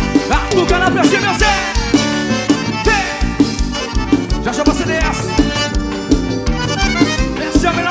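Forró band playing an instrumental passage: accordion running quick melodic lines over a steady bass-drum beat.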